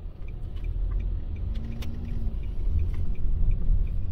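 A car's engine and road noise heard from inside the cabin as a steady low rumble in slow, jammed traffic. A faint, regular ticking runs along with it at about three ticks a second.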